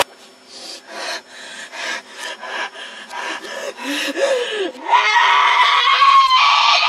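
Scratchy rubbing and clattering noise with a few low, wavering vocal sounds, then about five seconds in a boy breaks into a loud, high-pitched, drawn-out scream.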